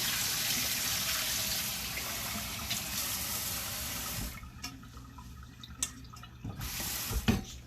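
Kitchen tap running while rice is rinsed, shut off about four seconds in. Then scattered clicks and knocks of a pot being handled, with a brief rush of water and a louder knock near the end.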